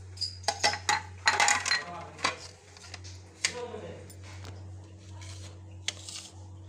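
Plates clinking and knocking against a stone kitchen countertop as they are handled: a quick cluster of sharp knocks in the first two seconds, then a few single knocks, over a steady low hum.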